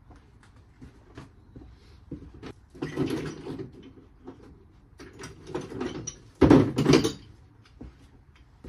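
Clicks, scrapes and knocks of metal tools and parts being handled during suspension work. A rattling scrape comes about three seconds in, another around five to six seconds, and a loud clunk about six and a half seconds in.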